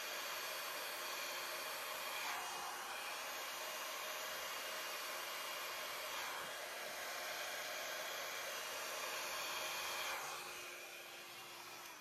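Handheld hair dryer blowing a steady rush of air with a faint motor hum, aimed at wet acrylic paint to push it out into a bloom. The noise falls away over the last two seconds as the dryer is switched off.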